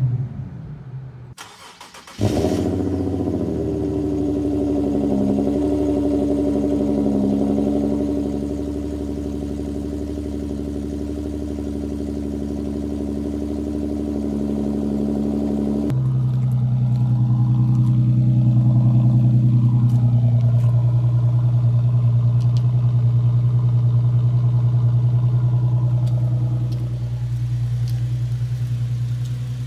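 Infiniti Q50 V6 with a custom muffler delete starting up about two seconds in, then running at a steady idle. After a cut it is heard idling steadily from outside the car, with a strong low hum.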